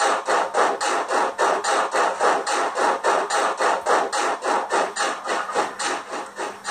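ESU LokSound 5 decoder in a Roco H0 class 85 model steam locomotive playing rhythmic steam-exhaust chuffs through the model's small speaker, about four a second. A faint steady hum lies underneath.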